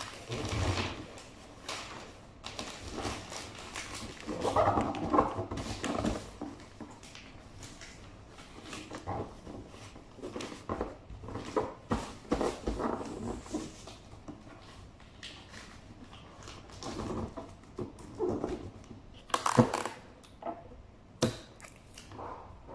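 Christmas wrapping paper crinkling and rustling as it is folded and pressed over a large cardboard box, with irregular handling noises and a few sharp clicks and taps near the end.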